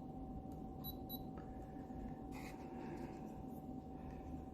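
Quiet room tone with a faint steady hum, two faint short high beeps about a second in, and a soft brief rustle a little past two seconds.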